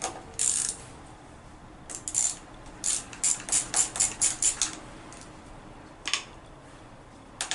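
Socket ratchet clicking in short runs while the handlebar lever's pivot bolt is loosened: a quick run of about eight clicks in the middle, with a few single clicks before and after.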